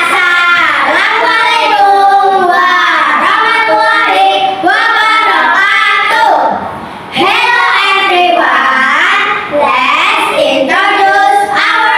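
Children singing together, with a brief pause about six and a half seconds in before the singing picks up again.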